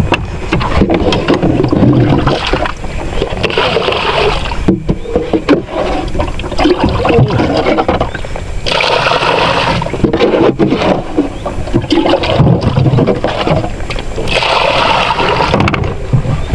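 Water splashing and sloshing close beside a small boat, in loud irregular surges.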